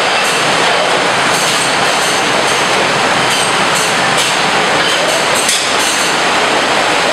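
Robotic case packer working on a factory floor: a loud, steady mechanical rush, with brief high surges recurring about once a second as its gripper heads cycle.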